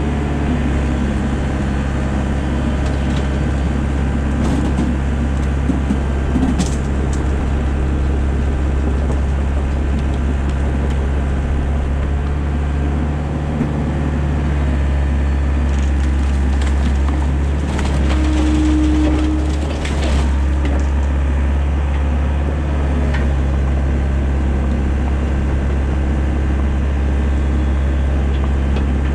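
Excavator's diesel engine running steadily under load, heard close from the cab, with a few clunks and cracks of block and wood debris and a brief whine about two-thirds through.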